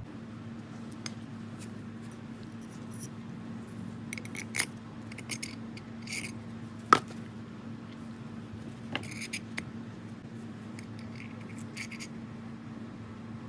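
Small metal parts of an Atlas lathe's cross-slide clicking and scraping as they are handled and fitted together by hand, with one sharp metallic click about seven seconds in. A steady low hum runs underneath.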